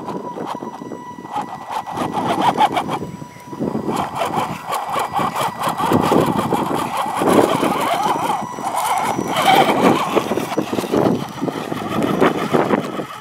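Axial SCX10 RC rock crawler's small electric motor and geared drivetrain whining as it crawls over rock, with its tyres scrabbling on the stone, amid gusty, uneven noise on the microphone.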